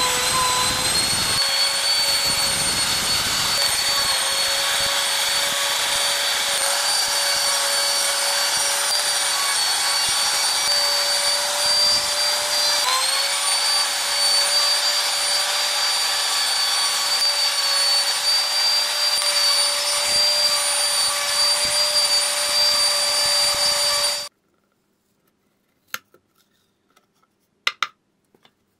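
Compact trim router running at speed with a steady high whine while its small bit routes a recess into a plywood control panel; the pitch sags briefly twice as the bit takes load. The motor sound stops abruptly near the end, followed by a few light clicks of the wood being handled.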